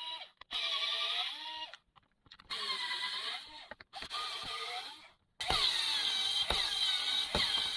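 Makita HP2040 hammer drill's brushed electric motor run in short trigger bursts, its pitch rising as it speeds up and falling as it slows, then running steadily from about two-thirds through. The owner sees it sparking, which he takes as a sign of worn carbon brushes.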